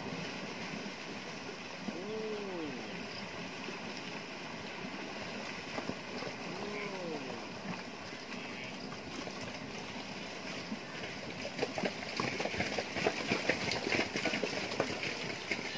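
Water buffalo herd wading out of shallow river water onto sand: splashing and a steady wash of water, with two short calls that rise and fall in pitch in the first half. From about eleven seconds in, the splashing and knocking grows thicker and louder as more animals come out of the water.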